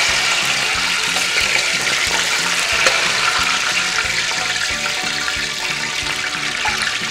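Hot oil at about 160 °C ladled over a hanging whole chicken, sizzling steadily and pouring back into the wok as the skin crisps. Background music with regular short notes runs underneath.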